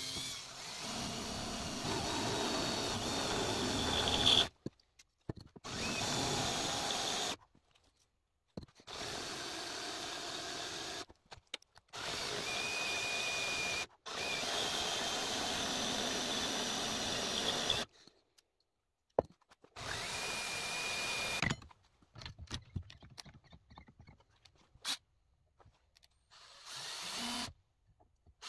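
Cordless drill boring into a clamped metal bar, running in about six spells of two to four seconds with short stops between them, sometimes with a thin high squeal from the bit. Near the end it gives only short blips of the trigger.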